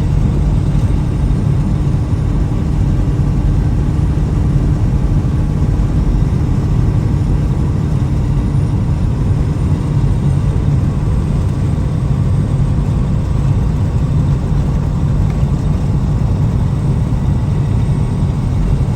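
Vehicle driving at steady road speed: an even, low engine and road rumble with a faint steady hum.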